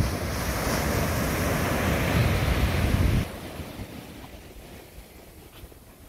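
Rough ocean surf with wind buffeting the microphone. The wind rumble is heavy for about the first three seconds, then drops off suddenly, leaving a softer wash of waves.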